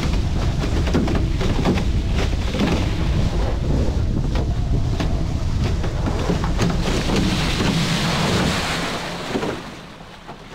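Wind buffeting a camera mounted high on a foiling A-Class catamaran, over rushing water. About three-quarters of the way through, a hiss of spray builds, then the noise falls away sharply as the boat drops off its foils and slows.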